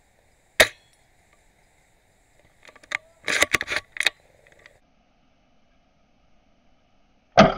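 Well MB03 spring-powered airsoft bolt-action sniper rifle: a sharp crack about half a second in, a quick run of metallic clacks of the bolt being worked from about two and a half to four seconds in, and another loud crack near the end.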